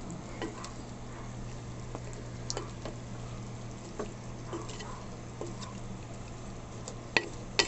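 Wooden spatula stirring and turning chicken and vegetables in a metal pan, with scattered clicks and scrapes against the pan and a light sizzle, over a steady low hum. Two sharper knocks of the spatula on the pan come near the end.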